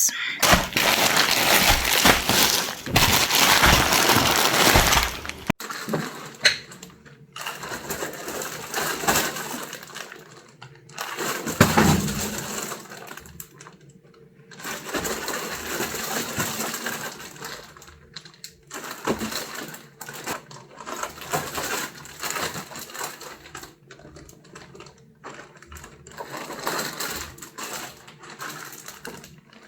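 Rustling and light clattering of packs of hair extensions being handled and put into an empty space, loudest and most continuous for the first five seconds or so, then in scattered rustles and small knocks.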